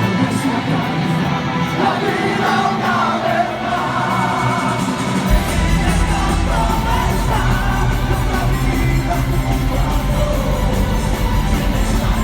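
A live folk-metal band playing with a singing voice over it. About five seconds in, the bass and drums come in heavily underneath.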